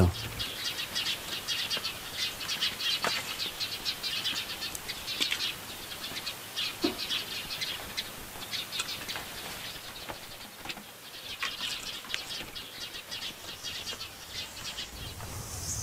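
Small birds chirping: many short, high chirps scattered irregularly throughout, with a few faint knocks. A steady high hiss comes in near the end.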